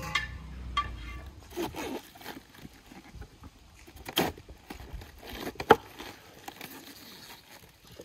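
Raw white cabbage being handled and cut with a knife to remove the core: crisp crunches, snaps and rustles of the leaves. A few sharp clicks stand out, the loudest about two-thirds of the way through.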